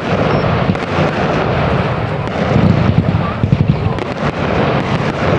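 Firework display: a dense barrage of booms with rapid crackling pops over a low rumble, growing loudest and sharpest about halfway through.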